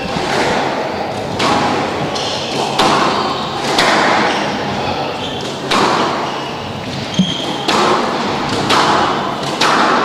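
Squash rally: a hard rubber ball smacked by rackets and rebounding off the court walls, sharp echoing hits about once a second, with short high squeaks between them.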